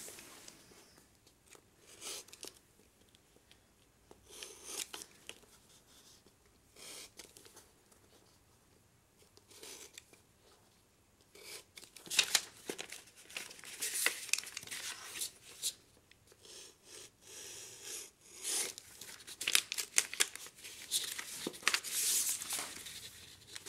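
Double-sided tape being pulled off and torn, with paper handled as the tape is pressed onto the tabs of a paper model. Short tearing and rustling sounds, sparse at first and more frequent from about halfway.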